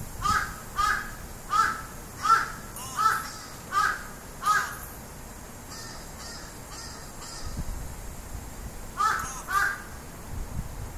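Crow cawing: a quick series of about seven caws, then fainter calls, then two more caws near the end.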